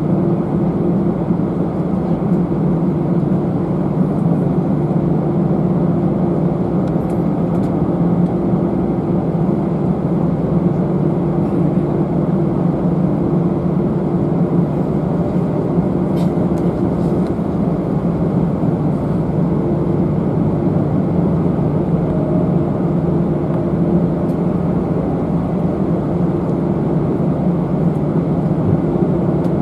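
Steady cabin drone of an Airbus A319-111 airliner: the engines and rushing air heard from a passenger seat as a constant low hum with no rise or fall.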